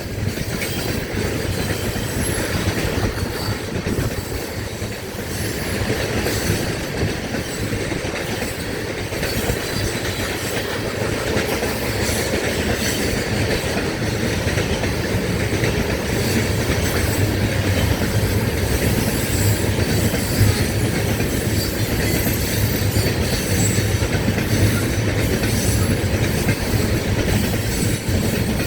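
Tank cars of a unit freight train rolling past at steady speed: a continuous rumble of steel wheels on rail, with rapid clickety-clack as wheels cross rail joints.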